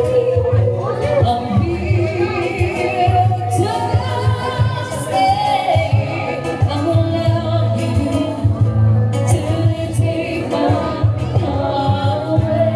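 Music with a sung vocal line over a steady low bass.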